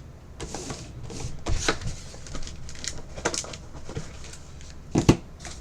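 Trading-card box and cards being handled: irregular rustling, sliding and light clicks as the box is opened and cards pulled, with a louder knock about five seconds in.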